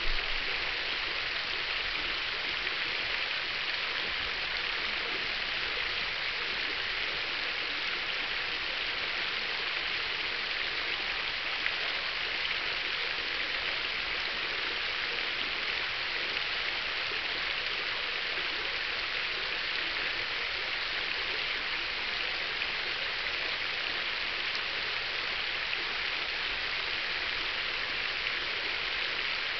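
Garden fountain running: water from a central brass cascade nozzle and a ring of 44 stainless-steel and brass jets splashing steadily and evenly into its basin.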